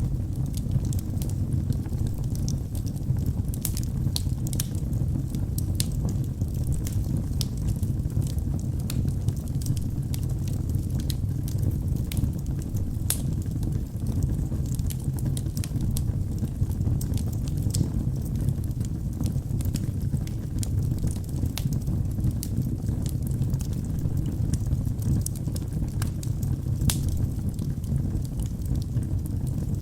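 Wood fire crackling in a fireplace: sharp pops and snaps several times a second over a steady low rumble of burning, with a couple of louder pops.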